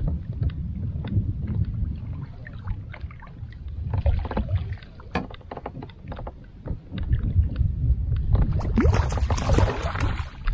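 A hooked kokanee salmon thrashing and splashing at the surface as it is scooped into a landing net, loudest near the end. Before that, a low wind rumble with scattered small clicks and knocks around the kayak.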